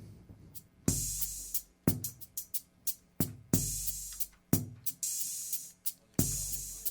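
Drum kit opening a live band's song: a heavy kick-and-cymbal crash roughly every two and a half seconds, each ringing on, with sharper single drum hits between them.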